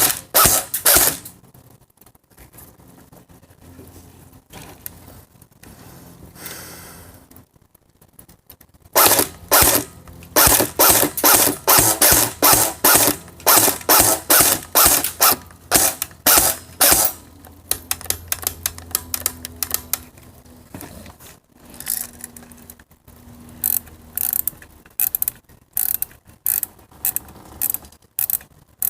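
Rapid run of sharp mechanical clicks, about three a second, like a ratchet: the working mechanism of an air rifle being handled. It comes in three bursts, a short one at the start, a long one through the middle and another near the end, with quieter gaps between.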